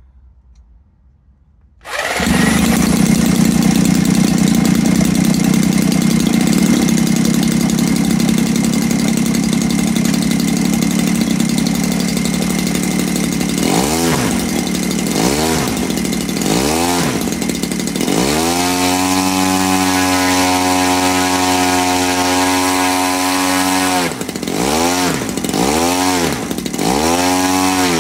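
CRRC 40cc two-stroke petrol model aircraft engine with a wooden propeller, starting about two seconds in and then running at a steady idle. From about halfway it is revved up and down in short blips, held at high revs for several seconds, then blipped up and down again.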